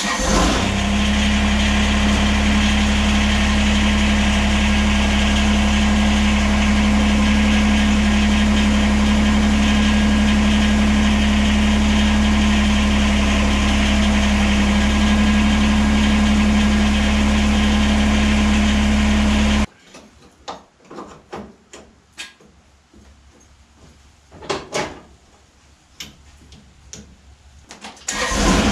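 Kubota BX23S compact tractor's three-cylinder diesel engine starts and runs at a steady idle, then cuts off suddenly about twenty seconds in. What follows is quiet apart from a few faint clicks and knocks, until the engine is heard running again at the very end.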